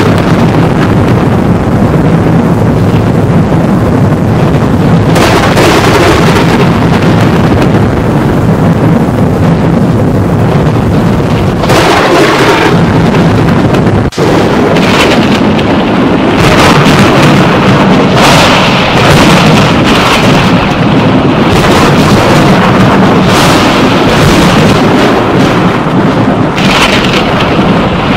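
Thunder: loud, continuous rolling rumble broken by repeated sharp cracks, with a momentary drop about halfway through.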